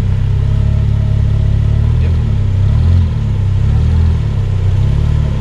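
Four-wheel-drive competition vehicle's engine running under load, a heavy low rumble that rises and falls in pitch as the revs change.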